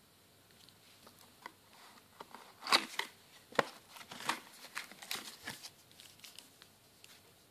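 Cardboard firework box being opened by hand and the tubes inside handled: a run of short rustles, scrapes and taps, the loudest about three seconds in.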